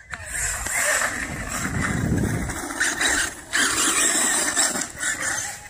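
HPI Vorza brushless-electric 1/8-scale buggy on a 6S battery driving over dirt: motor and drivetrain whine with tyre noise, surging and easing with the throttle, with short lulls about three and a half and five seconds in.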